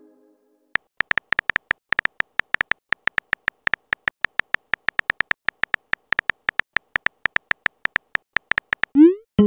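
Keyboard click sound effects of a texting app, short even taps about five a second, one for each typed letter of a message. A short rising swoosh near the end marks the message being sent.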